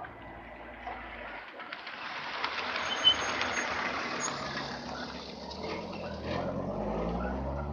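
A motor vehicle passing with a broad rush of noise and a sharp click about three seconds in, then a van's engine running close by, its pitch rising near the end.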